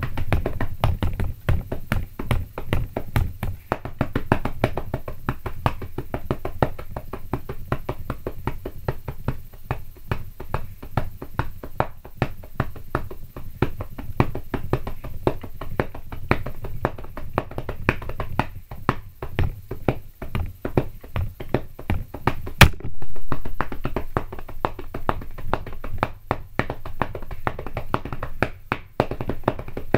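Drumming on a bed and pillows used in place of a drum kit: a fast, steady stream of taps and dull thuds, with one much louder sharp crack about two-thirds of the way through.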